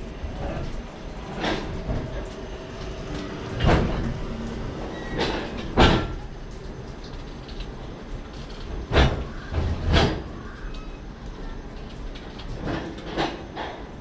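Passenger coach rolling slowly through a station on steel wheels: irregular heavy metallic clunks and knocks from wheels and couplings over a low rumble, the loudest a little past halfway.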